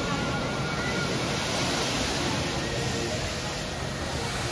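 Steady rushing outdoor noise with faint distant voices, the general background of a busy amusement park.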